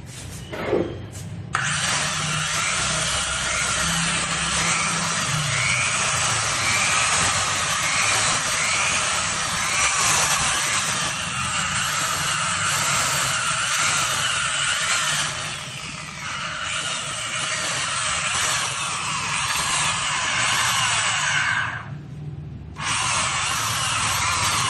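Handheld electric power tool working a powder-coated surface in sanding or polishing, a steady high whirring hiss. It starts about a second and a half in, cuts out briefly near the end and starts again.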